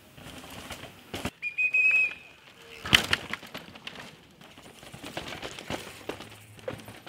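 A downhill mountain bike clattering down a rough dirt track, with a sharp knock about three seconds in as the loudest sound and a run of rattles and clicks after it. A shrill whistle sounds once about a second and a half in, held about half a second.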